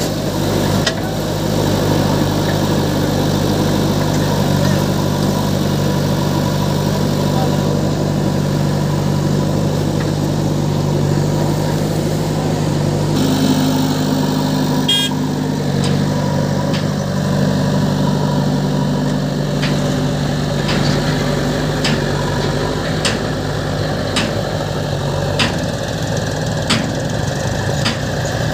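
Heavy diesel engine idling steadily. In the second half, sharp clicks come every second or so.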